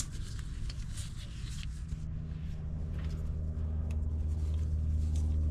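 A vehicle engine running with a steady low hum that grows louder from about two seconds in, with scattered light metallic clicks over it.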